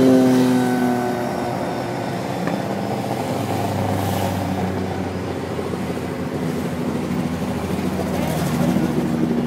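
Race car engines at full throttle climbing past one after another. The first car's engine note drops in pitch and fades in the first second as it draws away, then the next cars are heard coming up, louder again near the end.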